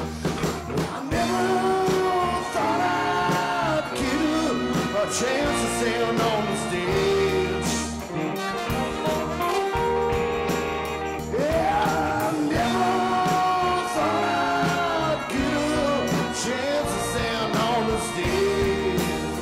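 Live soul band playing: horn section, electric guitar and drums, with bending melodic lines over a steady groove.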